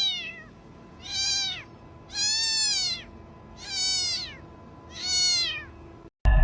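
A domestic cat meowing five times, about a second apart, each meow arching up and down in pitch.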